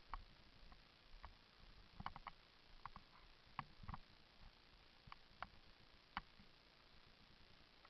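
Near silence, broken by faint, irregular short clicks and ticks scattered every second or so.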